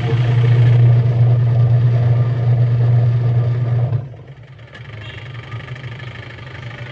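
Single-tub washing machine motor running with a steady low hum. It drops sharply in level about four seconds in and carries on more quietly. The motor is wired direct through one capacitor lead, so it turns one way only, with no reverse.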